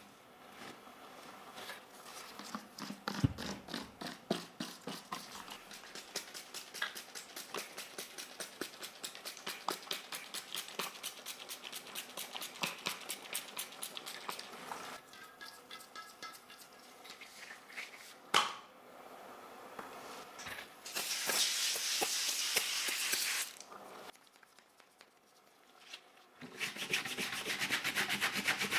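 Hand cleaning work on keyboard parts: a long run of quick light scratching and ticking strokes. Around two-thirds of the way in comes a louder stretch of steady rubbing, then a short pause, then the rubbing starts again near the end.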